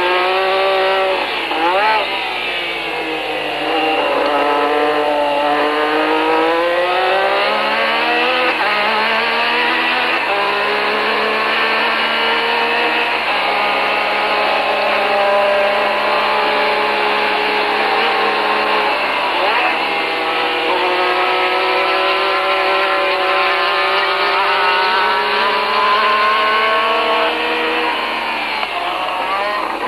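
A Grand Prix single-seater's engine heard from the onboard camera, running hard. The note climbs in steps through the gears and drops sharply under braking about two seconds in, around twenty seconds in, and again near the end.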